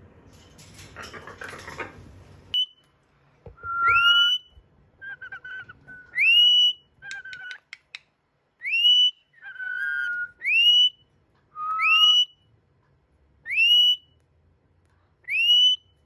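Rainbow lorikeet giving a series of about seven loud whistles, each a short flat note that swoops up into a higher held pitch, spaced one to two seconds apart. Rustling and a few clicks come before and between them.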